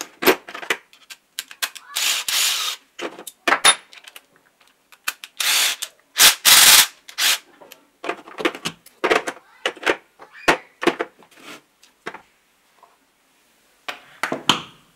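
Steel hex bits and a socket extension clicking and clattering against each other and a hard plastic socket-set case as they are handled and put away, with a few longer rattling clatters in between. A short cluster of clicks near the end as the cordless driver is picked up off the wooden bench.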